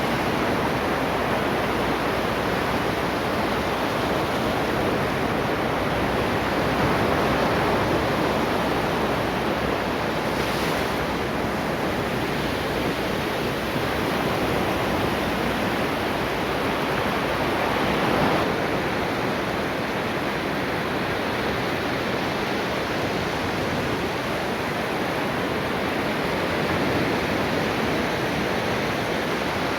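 Ocean waves washing onto a beach, a continuous rushing surf with gentle swells as breakers come in, a slightly stronger one about eighteen seconds in.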